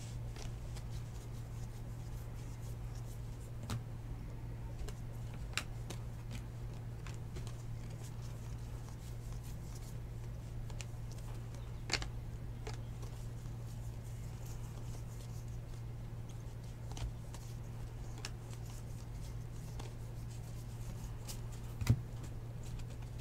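Baseball trading cards being handled and flipped through by hand: faint card-on-card sliding with a few soft clicks, the sharpest about halfway and near the end. A steady low hum runs underneath.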